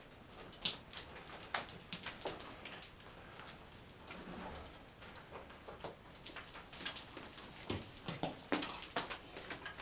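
Irregular clicks, clinks and scrapes of climbing gear and boots on rock as a caver unclips from a rappel rope, getting busier in the second half.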